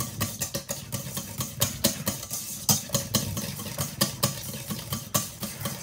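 Wire whisk beating thick mayonnaise in a stainless steel bowl, its wires clicking and scraping against the metal in quick, irregular strokes several times a second.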